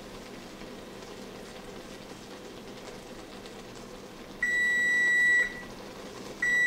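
Kitchen range's built-in digital timer running out: one long, high beep lasting about a second, then a second beep starting near the end, over a steady low hum. The beeps signal that the set cooking time is up.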